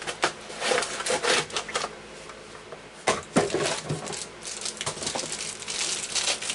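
Packaging of a new hard drive being opened: a run of crinkling and crackling, easing off for a moment midway before picking up again.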